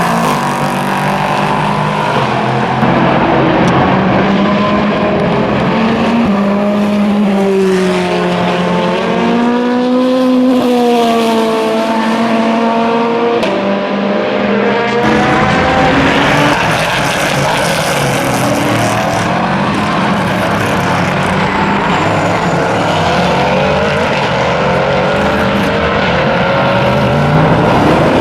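European Le Mans Series race cars running at speed on a circuit, engine pitch rising and falling as they accelerate, shift and pass one after another.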